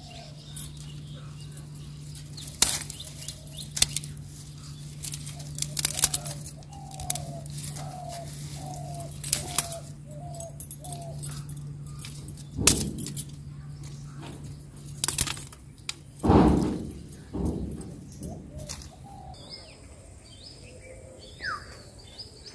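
Dead tree branches being snapped and broken by hand: a string of sharp cracks with rustling between them. A bird calls a run of short falling notes in the middle, and a steady low hum runs until about two-thirds of the way through.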